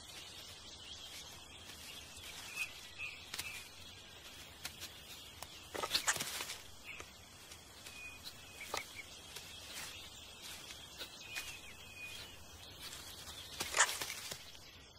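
Rainforest ambience: a steady high insect drone with short bird chirps and small crackles, and two louder sharp snaps, one about six seconds in and one near the end, as of stems breaking where a mountain gorilla moves through dense vegetation.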